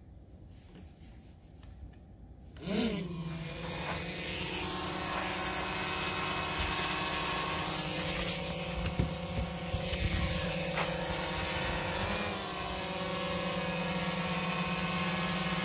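GoPro Karma quadcopter's four motors and propellers spinning up suddenly about two and a half seconds in, then a steady multi-tone propeller buzz as the drone takes off and hovers.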